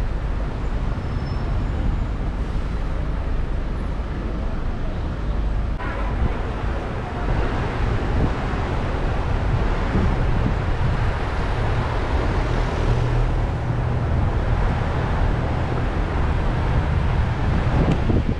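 A car driving through city traffic, heard from inside the cabin: a steady low rumble of engine and road noise with tyre hiss, growing a little louder about a third of the way in.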